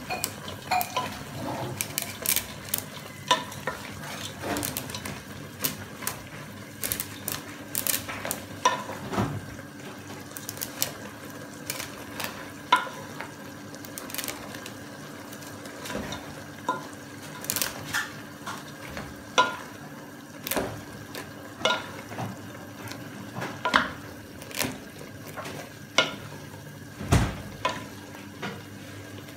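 Wooden spatula stirring and tossing noodles in a nonstick pot, knocking and scraping against the pan in irregular strokes about once a second, over a low sizzle.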